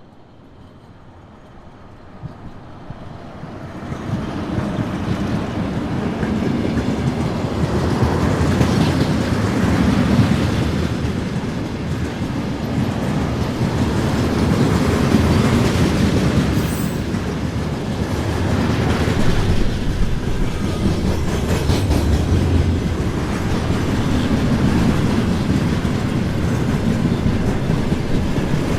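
Freight train approaching and then rolling past close by: a rumble that builds over the first few seconds, then a steady loud run of wagon wheels clacking over the rail joints, swelling and easing every couple of seconds.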